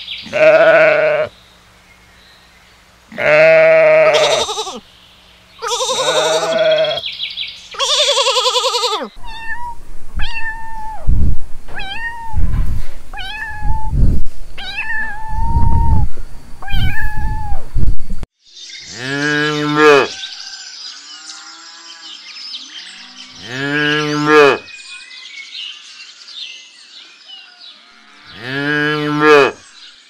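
A newborn lamb bleating four times, then a kitten mewing in a run of short high calls about once a second, then a cow mooing three times in long low calls.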